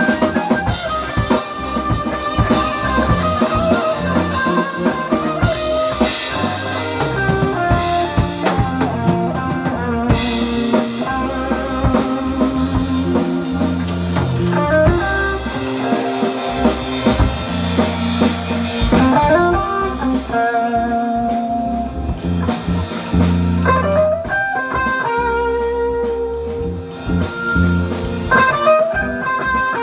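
Live rock band playing an instrumental: electric guitar carrying the melody in long held notes with vibrato over drum kit, bass and keyboards.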